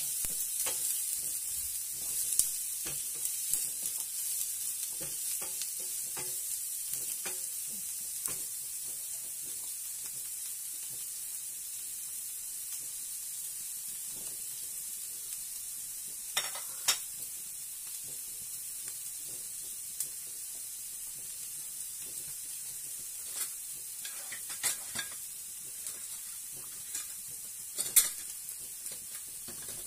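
Diced onion sizzling steadily as it fries in oil in a nonstick frying pan, with a wooden spoon scraping and stirring it during the first several seconds. A few sharp knocks come later, the loudest near the end.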